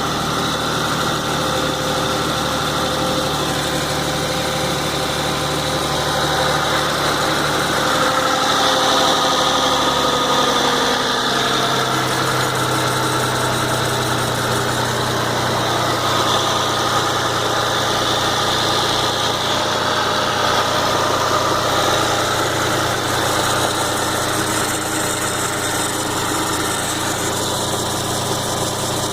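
Ford Mondeo ST220's 3.0 V6 engine idling steadily, with unusual noises mixed in that the owner calls weird. About eleven seconds in the engine note changes, with a tone gliding down.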